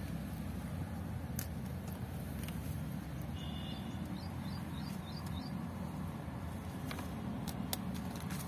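Steady low outdoor rumble, with a small bird chirping in a short quick run about three and a half seconds in and a few faint clicks near the end.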